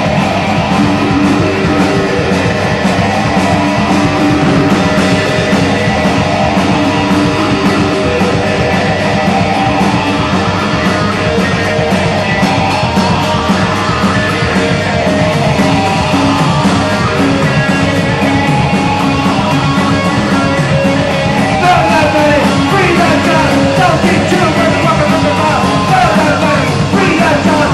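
Live rock band playing loudly without vocals: electric guitars, bass guitar and drum kit. In the last few seconds a guitar plays sliding, swooping notes over the band.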